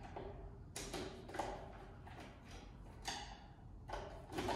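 Screwdriver loosening the terminal screws of a plastic wall socket and the wires being freed: a few irregular small clicks and scrapes.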